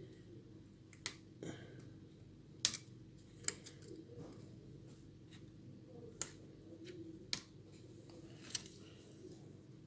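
Light, scattered clicks and taps, about seven spread over several seconds, as a tool works on an iPhone 7 Plus to unplug the display's cable connectors.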